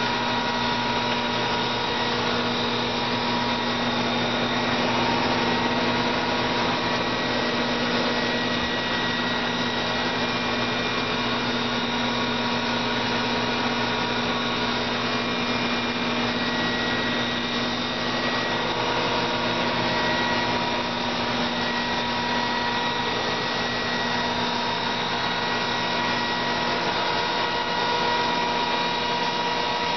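A small electric motor running steadily, with a constant whine over a rush of noise.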